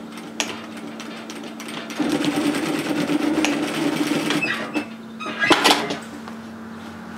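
Industrial sewing machine stitching through layers of fabric in a run of about two and a half seconds, over a steady motor hum. A short louder clatter follows about a second later.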